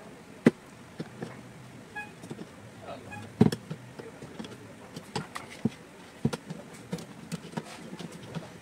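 Pliers gripping and turning the nuts on the end-cover studs of an air-cooler fan motor: irregular clicks and knocks of tool on the motor, with two sharper knocks about half a second and three and a half seconds in.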